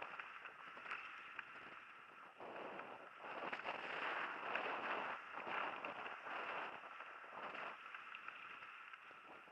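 Mountain bike riding fast down a dirt forest singletrack: tyres rolling and skittering over the trail surface with the bike rattling over bumps, loudest in the middle stretch.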